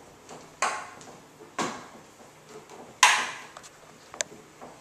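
Short plastic knocks and scrapes as a hose fitting is turned by hand into the centre hole of a plastic planter lid: a few separate clatters about a second apart, the loudest about three seconds in, and a small click near the end.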